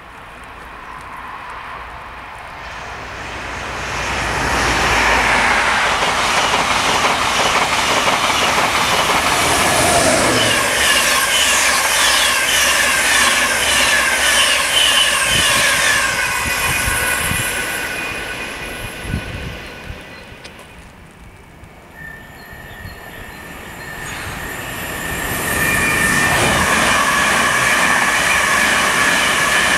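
Mainline trains passing at speed on the line. The first builds to a loud rush of wheels on rail, with a falling pitch about five seconds in, and fades around twenty seconds. A second train then approaches with a steady high whine and is loud near the end.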